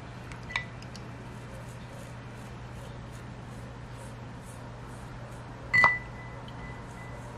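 Toothbrush scrubbing paint stripper off a plastic model engine block in a glass dish: faint, regular brushing strokes. A light clink against the glass about half a second in, and a louder one near six seconds that rings on for about a second.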